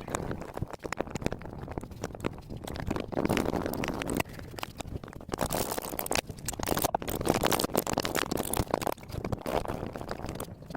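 Irregular knocks, clatter and scraping of a top-loading washing machine being taken apart by hand, its plastic and metal parts struck and pulled loose.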